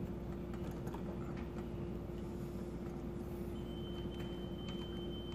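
Steady low hum with one faint held tone, over which come faint light clicks from plastic wire nuts being twisted onto electrical wire ends. A faint high whine starts about three and a half seconds in.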